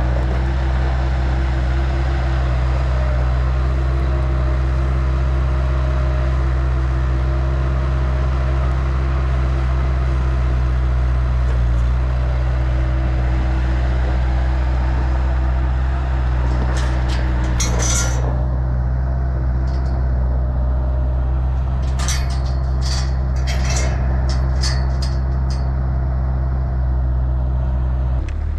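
A vehicle engine running steadily with a deep, even hum. A series of sharp clicks and knocks comes over it in the second half.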